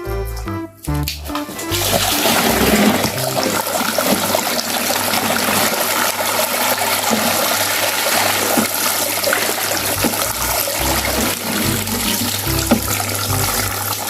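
Running water gushing steadily over a toy dump truck, washing the sand off it; the water starts about two seconds in.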